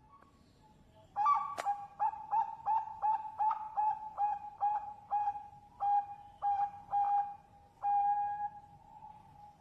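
Zebra dove (Bangkok perkutut) cooing: a fast run of about a dozen short clear coos, roughly three a second, ending in a longer held note. A sharp click sounds once early in the run.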